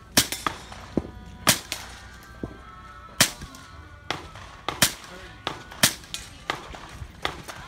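Rifle shots fired one after another at an uneven pace, about a dozen sharp cracks spaced half a second to a second apart.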